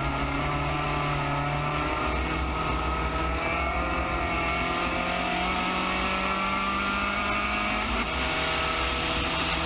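Spec Racer Ford GEN3 race car engine pulling hard, its pitch rising slowly as it accelerates, with a change of note about two seconds in and again near the end as the gears change up. Wind noise rushes past the open cockpit.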